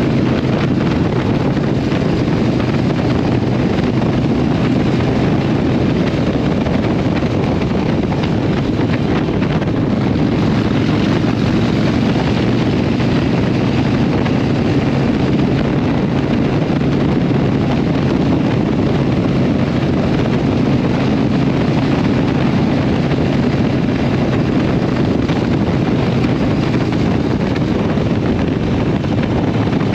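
Harley-Davidson Iron 883's air-cooled 883 cc V-twin running steadily through a Vance & Hines aftermarket exhaust at a cruise of about 45 to 50 mph, heard from the rider's seat with wind rushing over the microphone.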